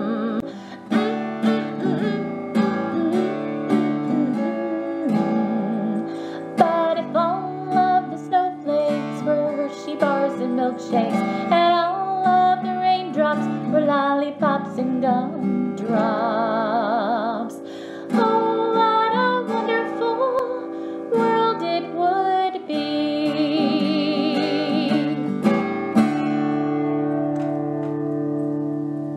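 Acoustic guitar strummed and picked with a woman's voice carrying the melody of a children's song, ending on a long held chord near the end.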